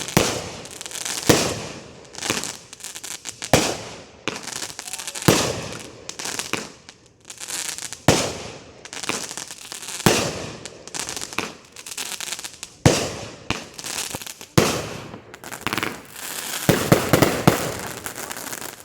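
200-gram consumer firework cakes firing: a sharp bang every one to two seconds, each trailing off in hiss and crackle, with a denser run of bursts near the end.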